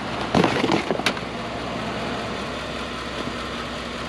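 Vehicle engine idling steadily, with a few short knocks and a sharp click in the first second.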